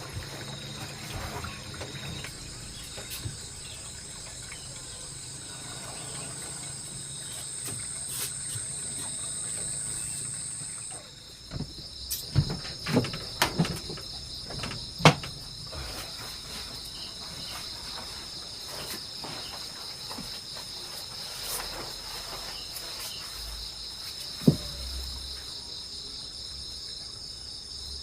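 Forest insects chirring in a steady, high-pitched chorus; a higher-pitched voice in the chorus stops about a third of the way through. A few sharp knocks come in a short cluster in the middle, and one more later.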